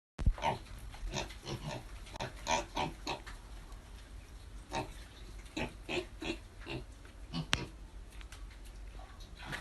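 Pigs grunting in short, irregular bursts, with a single sharp click about seven and a half seconds in.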